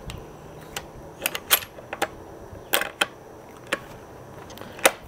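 Irregular sharp metallic clicks, about nine of them, of cartridges being loaded and a bolt-action rifle's action being handled.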